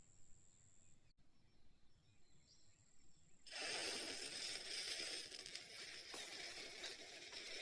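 A small ground firecracker fizzing as it burns: a steady hiss that starts suddenly about three and a half seconds in, after a faint, quiet stretch.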